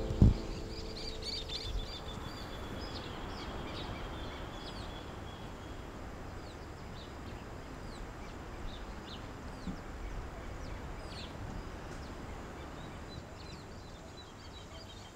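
Rural outdoor ambience: many small birds chirping in short, high, quick calls over a steady background hiss, busiest in the first half.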